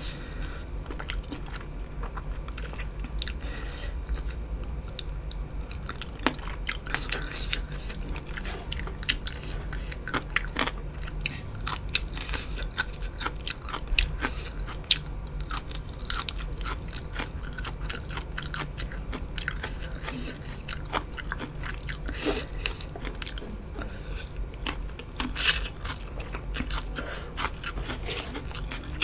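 Close-miked mukbang eating: a person chewing and biting into food, with wet mouth clicks and crunches throughout and one louder crunch near the end.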